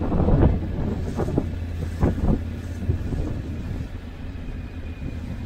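Motorcycle riding at low speed, its engine running as a steady low rumble, with wind buffeting the microphone in short gusts several times.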